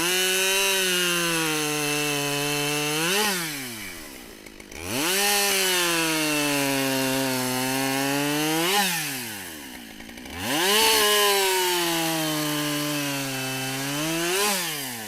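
Husqvarna 572XP two-stroke chainsaw with a 28-inch bar bucking black locust into firewood rounds. It makes three cuts. In each, the engine pitch sags under load, rises sharply as the saw breaks through, then falls away as the throttle is let off.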